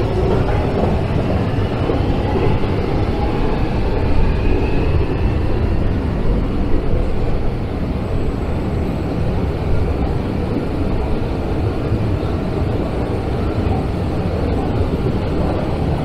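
Steady low mechanical rumble of a long Underground station escalator running, with a faint rising whine that fades out about five seconds in.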